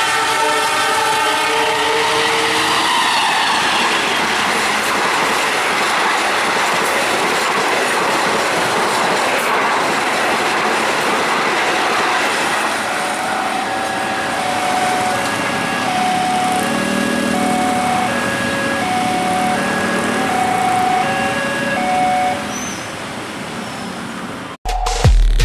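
Indonesian locomotive horn ending its long blast (signal 35) as a train runs through a level crossing at speed, its wheels clattering over the rails. About halfway through, the crossing's warning alarm can be heard chiming in a repeating two-tone pattern over the train noise, which eases off near the end. Music cuts in just before the end.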